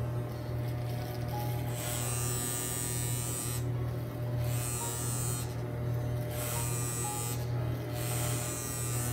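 Corded electric hair clippers with a guard comb buzzing steadily while cutting hair at the side of the head. A brighter rasp comes and goes about once a second as the blades pass through the hair, several passes in all.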